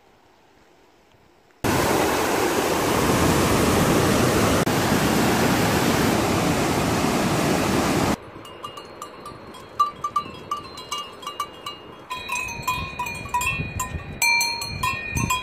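Glacial mountain stream rushing over rocks, starting suddenly about two seconds in and cutting off abruptly after about six seconds. Then a cow's neck bell clanks irregularly, each strike ringing with several tones.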